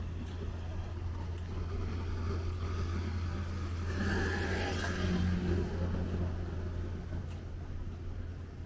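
Street traffic: a motor scooter's engine passes close by around the middle, over a steady low rumble of traffic.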